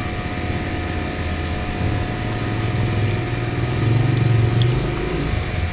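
A motor engine runs with a low drone that grows louder about four seconds in, then drops back shortly before the end.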